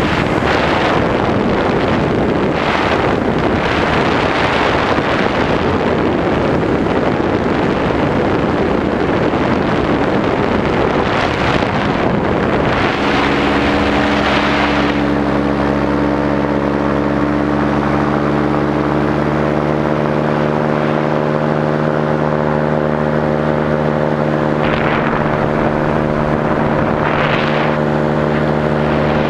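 Paramotor engine and propeller running at steady cruise power in flight, with heavy wind buffeting on the microphone. About 13 seconds in the buffeting eases and the engine's steady, even drone becomes the main sound.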